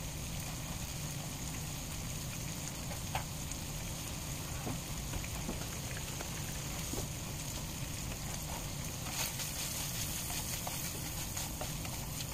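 Sliced sausage frying in oil in a skillet: a steady sizzling hiss with a few small pops.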